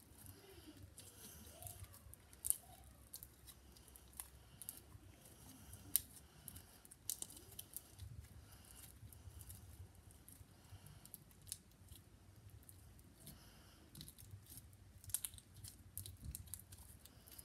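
Sticky slime squeezed and pulled apart between fingers, making faint, irregular little clicks and snaps as it sticks and releases.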